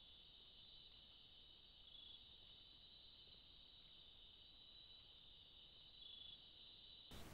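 Faint, steady high-pitched trilling of night insects in a rainforest chorus, a little louder twice, about two and six seconds in. It cuts off abruptly just before the end, replaced by a louder steady hiss.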